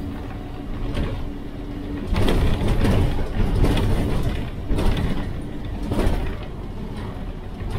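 Cabin noise of a moving Scania-engined bus: a steady engine drone with the body panels, windows and fittings rattling and knocking, the jolting of a rough-riding suspension. The rattling grows louder about two seconds in and comes and goes in stretches.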